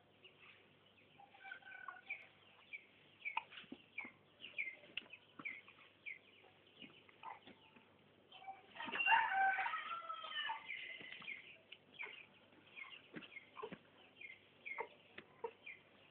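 Faint chicken calls: short chirps repeating throughout, with a louder bout of clucking calls about nine seconds in that lasts about two seconds.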